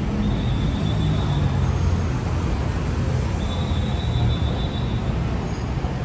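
Steady low rumble of city traffic with a faint high whine twice.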